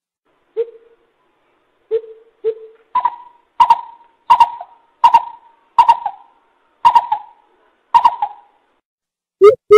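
Coucal (bubut) calling. First come a few single low hoots. Then comes a regular series of about seven sharper, higher notes, roughly one every 0.7 seconds. Near the end a quick run of deep hoots begins.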